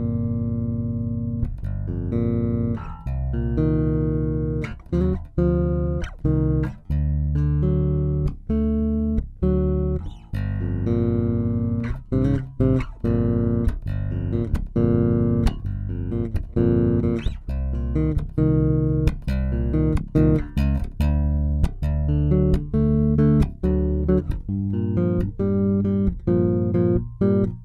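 Cort Space 5 headless five-string electric bass played solo: a busy groove of short, low notes with sharp, percussive attacks.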